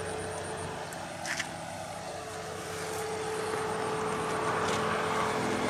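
A steady engine drone from a running motor, growing louder through the second half, with a short click a little over a second in.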